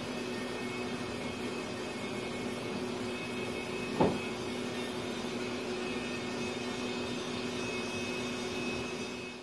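Electric heat gun blowing steadily, a fan rush with a steady hum, as it is passed over freshly poured epoxy in a wood slab's knot holes to draw out air bubbles. One short knock about four seconds in; the sound fades near the end.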